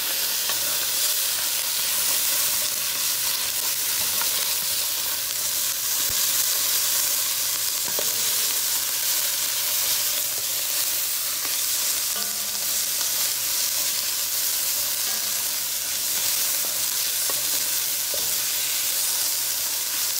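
Chopped onion sizzling steadily in butter in an enamelled pot, stirred with a spoon that now and then scrapes and taps the pot.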